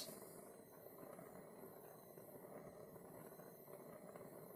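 Near silence with a faint, steady rushing from a hand-held propane torch flame.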